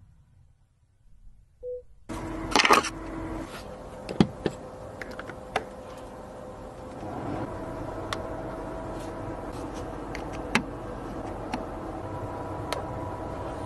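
A short electronic beep, then a steady hiss with scattered sharp clicks and a few faint, held electronic tones.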